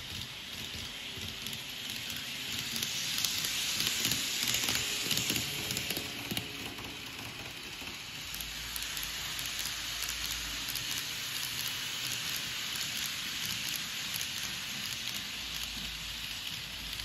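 Kato N-gauge 683 series 4000 model train running along the layout track: a steady hiss of small wheels on rail with fine clicking. It swells a few seconds in and then eases to a steadier level.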